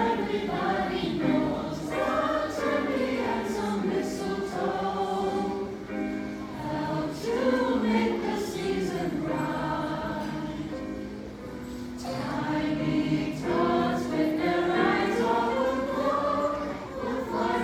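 A mixed-voice high school choir singing in parts, with sustained chords moving from note to note.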